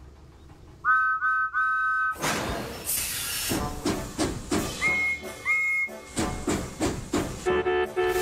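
Animated steam-engine sound effects: a two-note steam whistle blows three times, short, short and longer. Then comes a burst of hissing steam with rhythmic chuffing, two short higher-pitched whistle toots, and near the end a lower horn.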